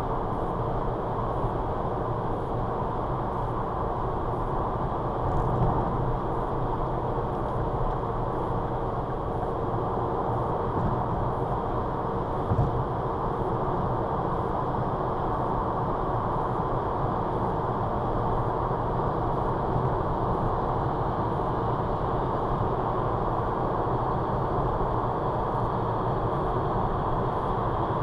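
Car driving at motorway speed, heard from inside the cabin: steady tyre and road noise with engine hum, broken by two brief light thumps.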